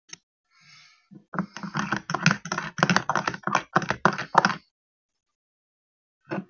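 A packet crinkled and crumpled close to the microphone: a quick, dense run of crackles lasting about three seconds, with one short crackle near the end.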